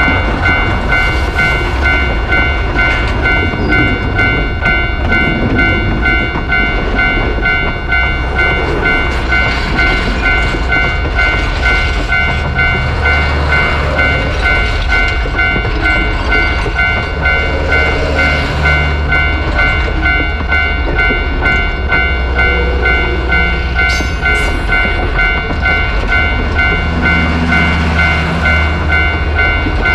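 Japanese railway level-crossing alarm ringing in a steady, evenly repeating ding, over the continuous rumble of a train going by.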